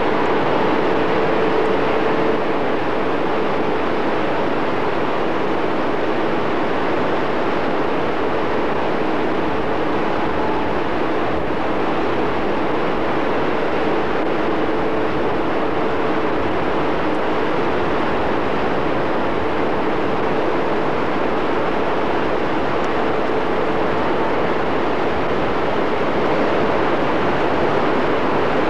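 Tidal rapids running at full flow: a continuous rush of whitewater that stays steady throughout, with a faint steady hum underneath.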